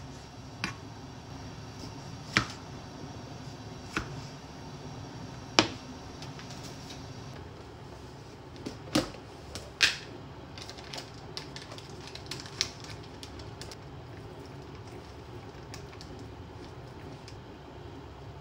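Kitchen knife knocking through a tomato onto a plastic cutting board, four sharp knocks about a second and a half apart. Then kitchen utensils clack and tick against a saucepan as soup is stirred, over a steady low background hum.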